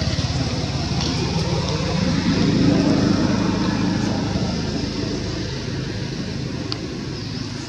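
A motor vehicle's engine running, swelling about two seconds in and then fading away.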